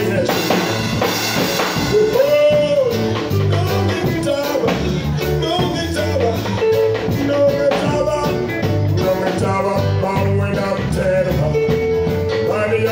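A man singing a gospel song into a microphone over a band accompaniment with a repeating bass line and drum beat, his melody held on long notes.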